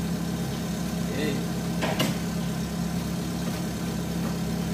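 Small car engine idling steadily, with a sharp knock about two seconds in from a snow brush working the frosted bonnet and windscreen.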